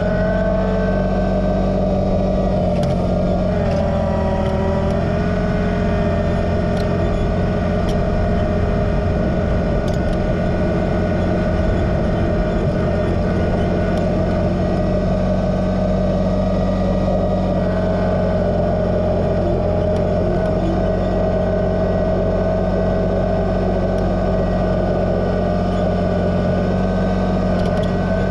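Kubota BX2380 sub-compact tractor's three-cylinder diesel engine running steadily at working throttle; its pitch dips briefly about four seconds in.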